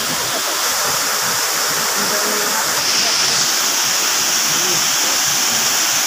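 Waterfall: water rushing in a steady, continuous hiss that turns brighter and a little louder about halfway through, with faint voices underneath.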